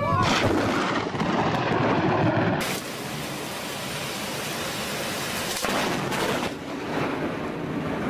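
Storm sounds: wind rumbling on the microphone, then from about two and a half seconds in the steady hiss of heavy, wind-driven rain.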